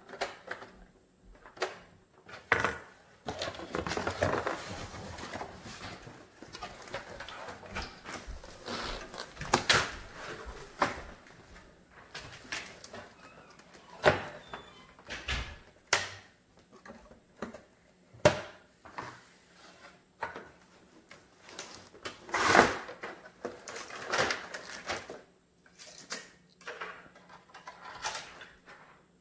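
Cardboard box and packaging inserts being handled and pulled apart: rustling and scraping with a string of irregular knocks and thumps.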